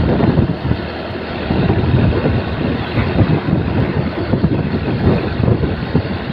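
Steady rumble of a moving vehicle, with wind buffeting the microphone.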